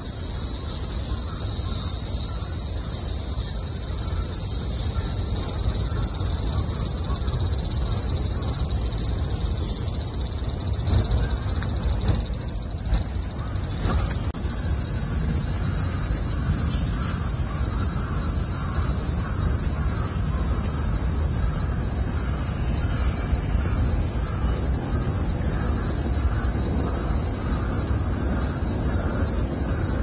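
Chorus of cicadas buzzing steadily in a high, continuous drone, over a low rumble. About fourteen seconds in, the buzz abruptly becomes fuller and slightly louder.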